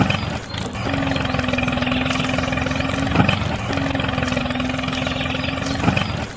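A small motor or engine running steadily with a constant hum. It breaks off briefly about half a second in, again about three seconds in with a click, and near the end.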